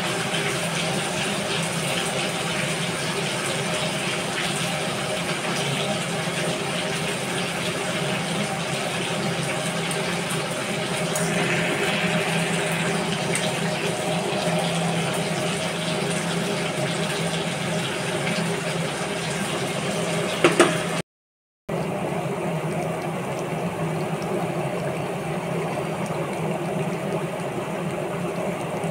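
Chicken curry bubbling as it simmers in a pan, over a steady mechanical hum. A sharp knock about twenty seconds in, then the sound drops out briefly.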